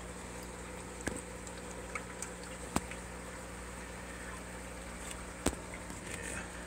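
Steady low hum and faint bubbling of water from a running aquarium, broken by three sharp clicks about one, three and five and a half seconds in.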